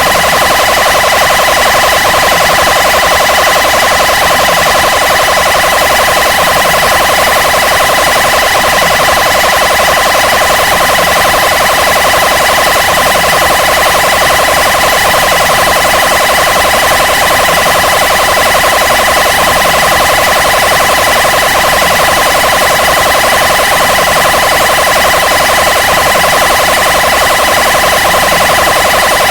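Police/ambulance siren sound effect in its fast wail mode: a very rapid, rattling pulse that sounds like shooting. It holds steady and loud throughout.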